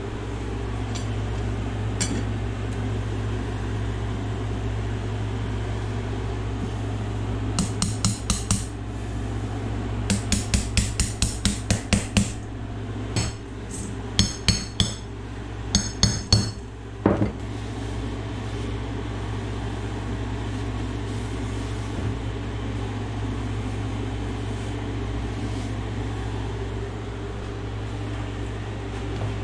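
Hammer striking metal in quick runs of sharp blows, some leaving a high metallic ring, from about eight seconds in to about seventeen, on parts of a rear-axle gear and posi install. A steady low hum lies underneath.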